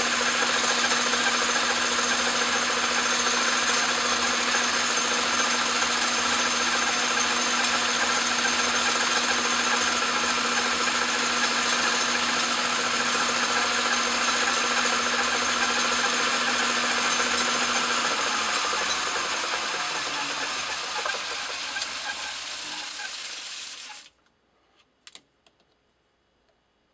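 Craftsman Atlas metal lathe running while a tool bit turns down brass stock, a steady motor hum under the running noise. About 18 s in the hum falls in pitch as the lathe is switched off and spins down. The sound then cuts off suddenly, followed by a couple of faint clicks.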